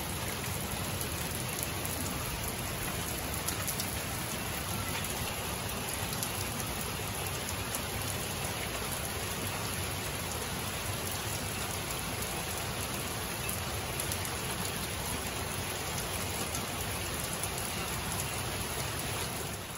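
Steady summer rain falling on a wooden deck and leafy trees: an even hiss with individual drops ticking here and there.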